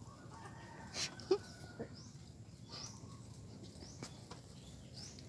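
Quiet farmyard background with a few short, high bird chirps spread through it and a few faint knocks.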